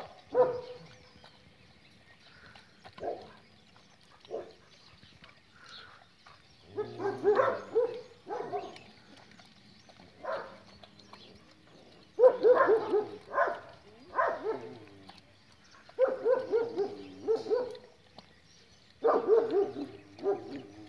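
A dog barking in bursts of several quick barks, repeated every few seconds with short pauses between.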